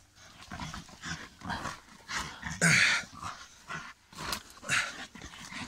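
Hunting dogs growling as they bite and tug at a freshly killed badger, in short irregular bursts, the loudest a little before halfway through.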